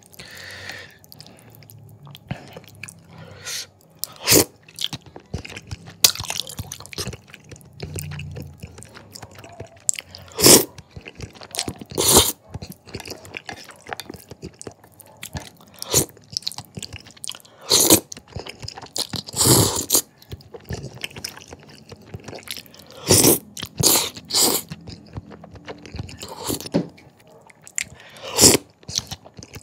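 A person eating thick jajangmyeon noodles in black bean sauce: wet chewing and noodle slurps go on throughout, with about eight sharper, louder slurps spaced irregularly.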